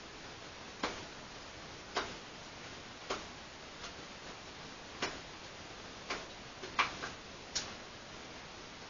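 Carving knife slicing a wooden spoon blank: short, sharp snicks of the blade cutting through the wood, roughly one a second at an uneven pace, coming more quickly in a cluster near the end.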